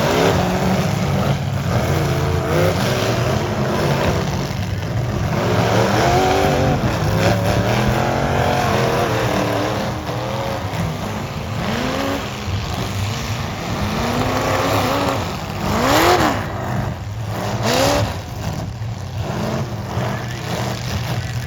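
Several full-size derby cars' engines running and revving up and down at once, their pitch rising and falling over a steady low drone. Two sharp bangs come about three quarters of the way through.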